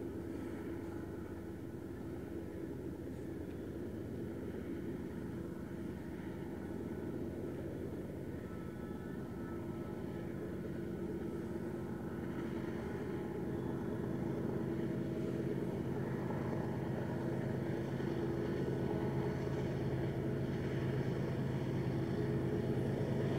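Diesel-electric freight locomotives of a BNSF coal train working under load, pulling full coal hoppers slowly up a 1% grade. A steady low engine drone that grows gradually louder as the locomotives come closer.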